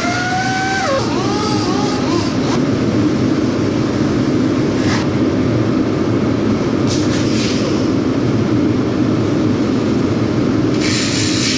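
Pneumatic cutoff tool with a small abrasive disc cutting sheet metal: a whine that rises and then drops about a second in, then a steady harsh grinding as the wheel cuts.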